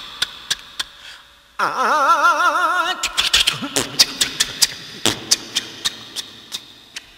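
Comic sound effects of an old car struggling to start: a run of sputtering pops and clicks that thin out and fade, with a warbling, wobbling tone for about a second and a half early on.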